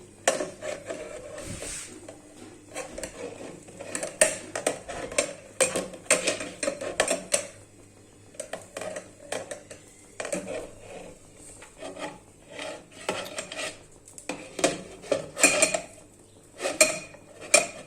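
Metal cookware and utensils clinking and knocking: an irregular run of sharp clatters as pots and kitchen utensils are handled.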